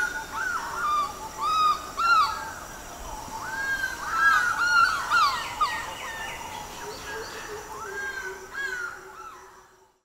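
Several crows cawing again and again, their calls overlapping at times over a morning ambience of other birds, fading out near the end.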